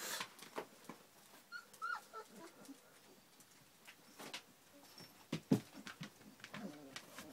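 Three-week-old puppies whimpering with a few short, high squeaks and some lower cries near the end, mixed with scattered light knocks.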